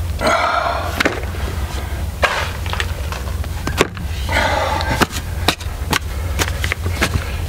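Shovel scraping into gravelly dirt and tossing it, with many sharp knocks of stone and a longer scrape twice, just after the start and about four and a half seconds in; a steady low rumble runs underneath. The scraping is a shovel backfilling around a buried access box.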